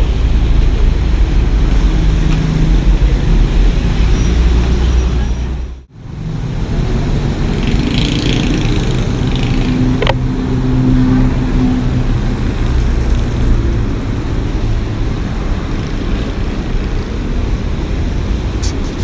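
Road noise of a car on the move: a steady low rumble of engine and tyres, broken by an abrupt cut about six seconds in.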